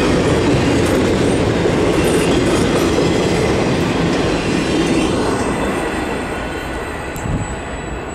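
Freight train of autorack cars rolling past close by, a loud steady rumble and clatter of steel wheels on rail. It fades over the last few seconds as the end of the train passes and moves away.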